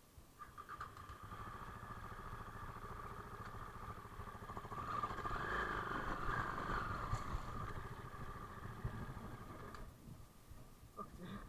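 Dirt bike engine running at a steady low speed as the bike rides slowly through a shallow river, growing louder in the middle and easing off near the end. A few sharp knocks come right at the end.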